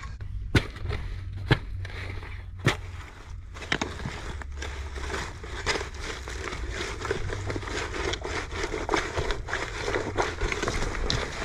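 Steel garden fork digging into gravel and broken shoreline rock, a steady crunching and scraping of stones with many small clicks. There are a few sharper knocks in the first four seconds, as the tines strike stone.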